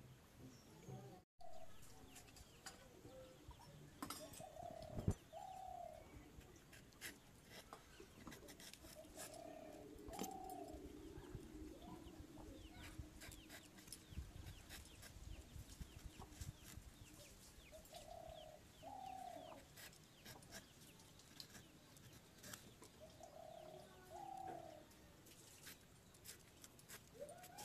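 A dove cooing faintly in short two-note phrases, four times, with soft ticking and scraping of a green vegetable being pared against a curved blade.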